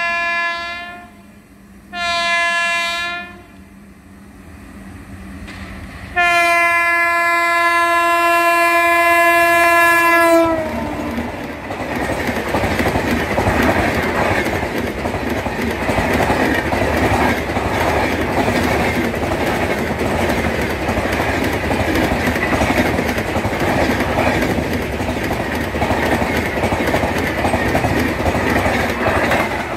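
Indian Railways express train passing at speed: three blasts of the locomotive's chord horn, the last held about four seconds with its pitch dropping as the locomotive goes by. Then a steady rush of the passing coaches with a fast clickety-clack of wheels over rail joints.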